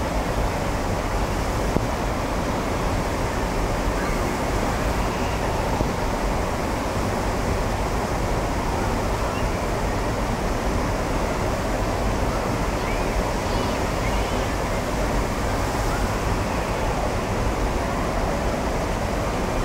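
Indoor surf simulator's pumped sheet of water rushing steadily up the artificial wave, an unbroken loud rush of water.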